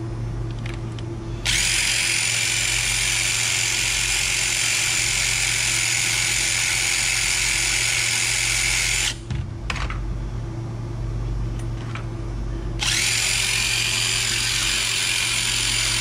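Cordless DeWalt driver running at a steady speed with a high whine, spinning a bit against a copper fitting held in pliers. It runs for about seven seconds, stops briefly with a couple of short blips, then starts again near the end.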